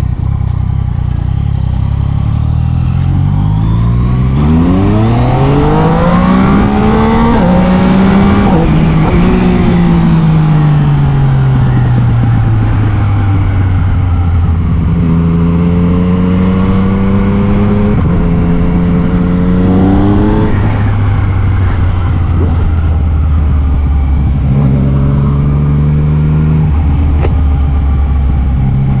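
Yamaha MT-09's three-cylinder engine heard from on the bike: it accelerates with revs climbing, breaks twice for gear changes about seven and nine seconds in, then falls away as the bike slows, and later runs at moderate revs with smaller rises and drops, under steady wind and road noise.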